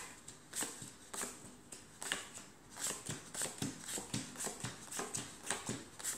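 Playing cards being dealt one at a time onto a felt table, each card making a short flick as it comes off the deck and lands. The cards come about every half second at first, then faster, two to three a second.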